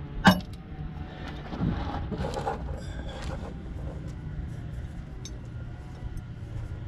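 A single sharp knock, then a few seconds of scraping and crunching of gravel as a wrench is brought under the car toward the oil pan drain bolt, with a few faint ticks later. A low steady hum runs underneath.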